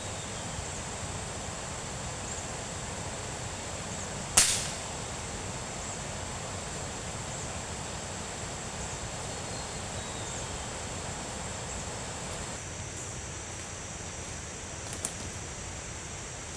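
One sharp crack about four seconds in, loud against a steady high hiss, followed by a smaller click near the end.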